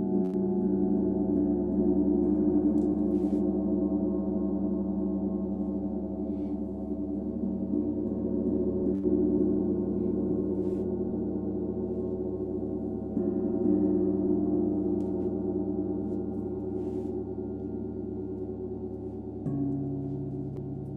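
Large metal sound-bath instruments ringing in long, overlapping sustained tones, struck again a little past the middle and once more near the end, when a new lower tone enters.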